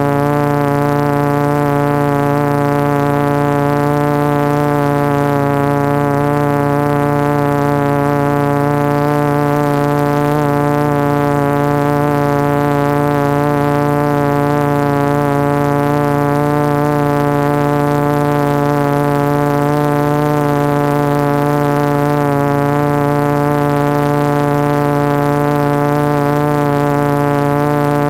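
Steady hum of a 450 quadcopter's four MultiStar 2212 920 kV brushless motors spinning 12x4.2 carbon-fibre props at hover, one unchanging pitch with many overtones.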